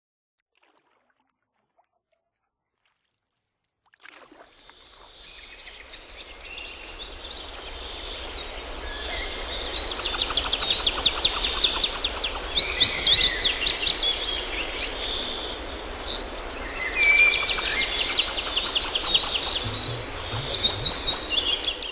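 Silent for about four seconds, then a chorus of songbirds fades in and grows louder: many birds chirping, with runs of rapid, high trilling notes.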